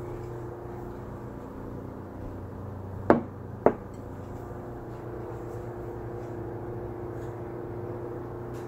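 A steady low mechanical hum, with two sharp knocks about half a second apart some three seconds in.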